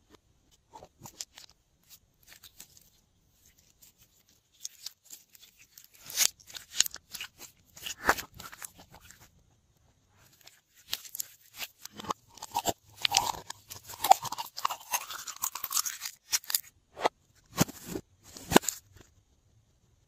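Glossy slime being stretched and squeezed by hand, giving irregular sticky crackles and pops, busiest in the second half.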